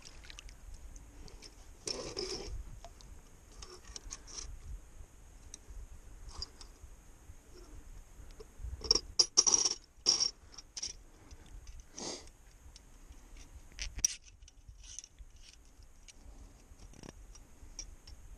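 Scattered clicks, scrapes and knocks of a steel 330 body-grip beaver trap being handled and set, loudest in a cluster of sharp clicks about halfway through.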